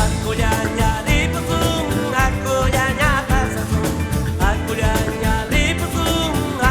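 Music: a song with a sung vocal line over band accompaniment and a steady beat, starting abruptly at the beginning.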